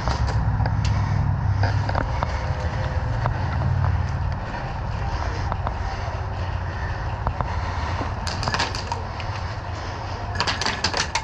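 Low rumble of movement and gear handling on a body-worn camera, strongest in the first four seconds or so, with scattered sharp clicks. About eight and ten seconds in come two short, rapid strings of sharp cracks: bursts of airsoft gun fire.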